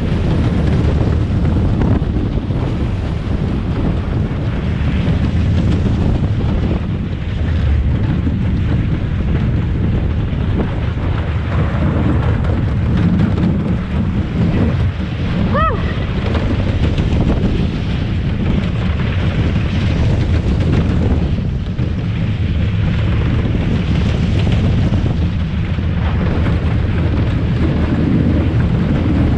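Jack Rabbit wooden roller coaster at full speed, heard from the rider's seat: heavy wind buffeting the microphone over a continuous low rumble and rattle of the train running on the wooden track.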